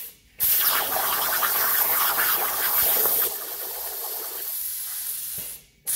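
CNC plasma cutter's torch cutting metal plate: a loud, steady hiss that eases a little after about three seconds. It cuts out briefly just after the start and again near the end.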